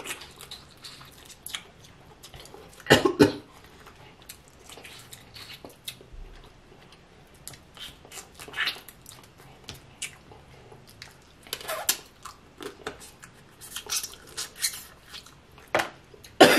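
Close-miked mukbang eating sounds: snow crab legs handled and broken open, with wet mouth smacking and chewing in irregular crackly bursts, the loudest about three seconds in.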